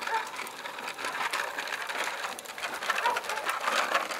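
Child's bicycle with training wheels rolling over a concrete path, giving a steady, rapid rattling and clicking.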